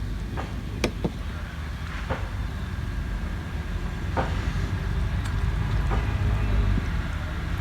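Eating sounds: short, sharp mouth clicks and smacks of chewing, a few over several seconds and closest together near the start, over a steady low rumble.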